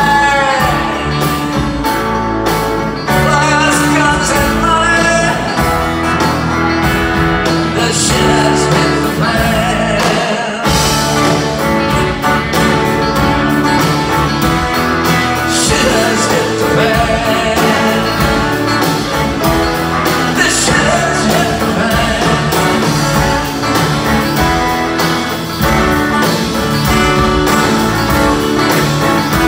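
Live band playing an up-tempo rock song, with acoustic and electric guitars, mandolin, keyboards, upright bass and drums together.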